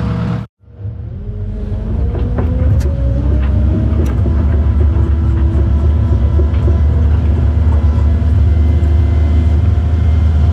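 Cat 309 mini excavator's diesel engine heard from inside the cab. After a brief dropout about half a second in, it climbs in speed over the next couple of seconds and then runs steadily at working revs, with a few light knocks along the way.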